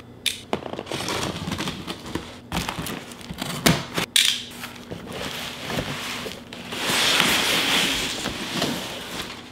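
Utility knife cutting through packing tape and a corrugated cardboard box: a few sharp clicks and crackles, then the flaps and inner box dragged against the cardboard in a longer scraping rustle about seven seconds in.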